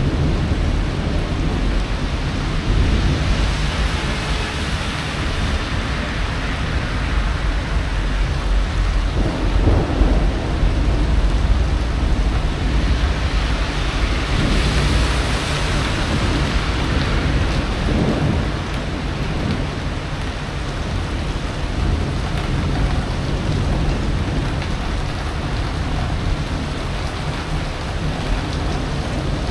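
Steady rain falling, with thunder rumbling low underneath.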